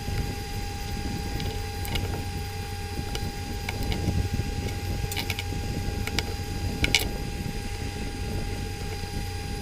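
A steady low mechanical hum with a thin constant tone, and a few small sharp clicks, about three, from handling and taking apart a small plastic mobile phone.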